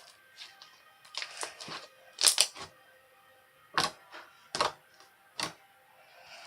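Irregular sharp clicks and taps, about a handful in all, loudest a quick double click about two seconds in.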